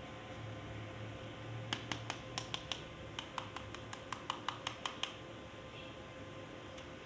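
Hard plastic toy parts or packaging being handled: a run of about fifteen sharp clicks and taps, unevenly spaced, over roughly three seconds from about two seconds in, over a faint steady hum.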